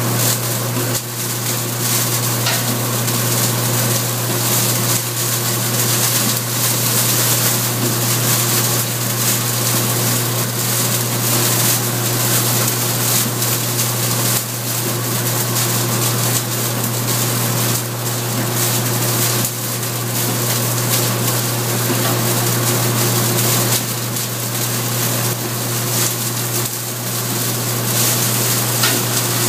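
Machine with a rotating drum of fingers or tines running steadily at speed: a constant motor hum under a dense rushing noise.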